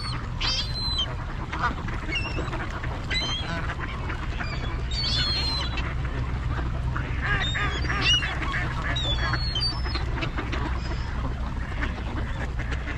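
A crowded flock of Canada geese and mallards calling, honks and quacks coming in scattered clusters, with a steady low rumble underneath.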